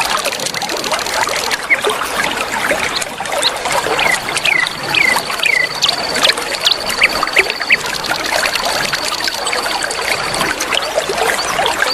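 River water flowing and trickling steadily. Over it, small birds chirp: a run of short downward-sliding calls about four seconds in, scattered sharp chirps, and a thin high steady trill through the middle.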